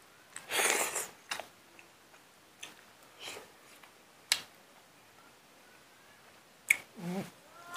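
Close-up eating noises of a man eating rice, pork and greens by hand: a loud slurp as a handful goes into his mouth about half a second in, then scattered wet chewing and lip-smacking clicks, and a short murmur near the end.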